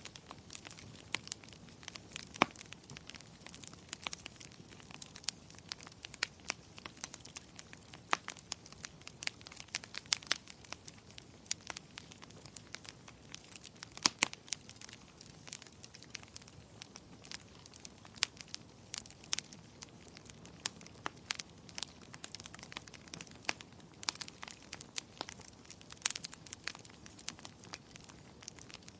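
Wood fire burning in a fireplace: irregular crackles and sharp pops over a soft steady hiss, with a few louder pops standing out.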